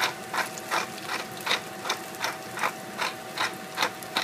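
Hand-turned spice mill grinding in short rasping twists, about two and a half a second.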